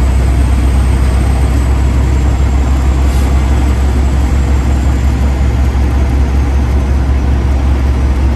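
Freightliner Classic XL semi-truck's diesel engine running steadily at cruise, a deep even drone heard inside the cab with road noise under it.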